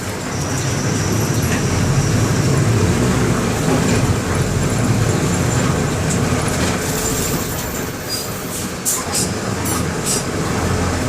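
Mercedes-Benz OM-924 LA four-cylinder in-line diesel of an OF-1721 BlueTec 5 bus running steadily, with a slight dip about eight seconds in and a few sharp rattling clicks near the end.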